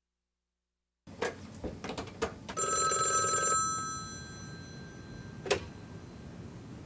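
Desk telephone's bell rings once for about a second, with a fast rattle under the tone, then fades out. A few light knocks come before it and a single sharp click follows a couple of seconds later.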